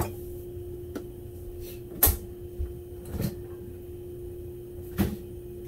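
Four sharp knocks and clunks of kitchen things being handled, the loudest about two seconds in, over a steady hum.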